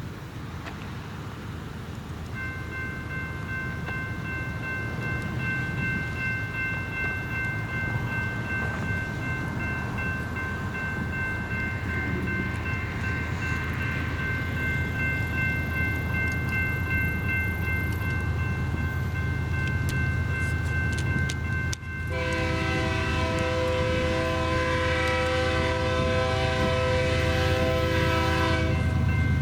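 BNSF freight train approaching, its diesel locomotives' low rumble growing steadily louder, with a steady high tone over it. About twenty-two seconds in, the locomotive's air horn sounds one long chord-like blast that lasts about seven seconds.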